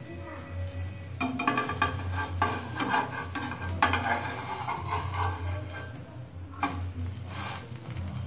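Egg-coated bread sandwich sizzling in hot oil in a nonstick frying pan. A stainless-steel spatula scrapes and taps against the pan as it pushes and presses the sandwich, busiest from about a second in until two-thirds of the way through, with a shorter flurry near the end. A steady low hum runs underneath.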